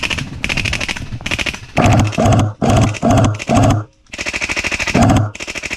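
Airsoft guns firing full-auto bursts, a rapid rattle of shots over and over. About two seconds in the bursts become short, heavier and deeper, a few tenths of a second each with brief gaps between them.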